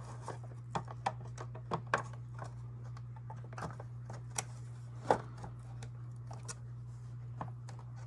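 Scattered light clicks and taps of hands handling parts, irregular and a few per second, over a steady low hum.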